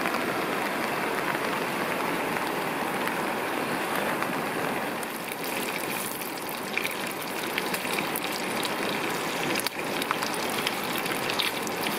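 Rain pattering steadily on a tarp overhead; from about halfway, bacon sizzling and crackling in a frying pan over an alcohol stove.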